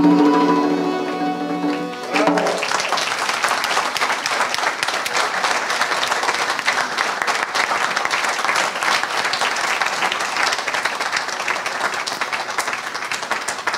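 An Armenian folk ensemble of flute, accordion, plucked lute and dhol drum holds the final chord of a piece, a high flute note over a low drone. The chord ends about two seconds in and audience applause follows, steady and easing off near the end.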